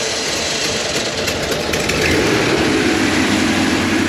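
Ford E-250 van's freshly reassembled engine running moments after its first start, the revs falling from a fast idle and settling about two seconds in.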